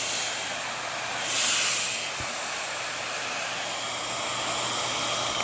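1800-watt salon hair dryer with an AC motor running steadily, a constant hiss of blowing air. It swells louder for about half a second roughly a second and a half in.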